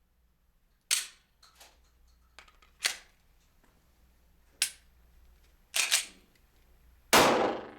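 Pistol gunshots: sharp single reports a second or two apart, then a quick double. The loudest and longest-ringing shot comes near the end.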